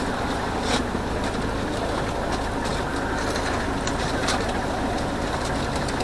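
City bus on the move, heard from on board: steady engine and road rumble with a few light rattles and clicks from the body.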